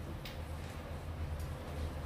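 A steady low hum with a few faint clicks and taps of a phone and small tools being handled on a repair bench.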